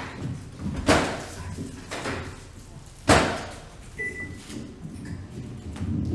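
Two sharp, loud knocks or slams about two seconds apart, each ringing out with a long decay, and a short high tone about four seconds in.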